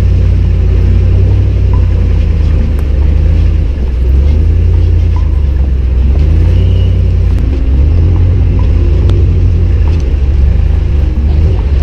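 Ram Power Wagon's 6.4-litre HEMI V8 running at low speed as the truck crawls along a muddy trail. Heard close up from the front fender as a loud, steady low rumble, with a few light clicks.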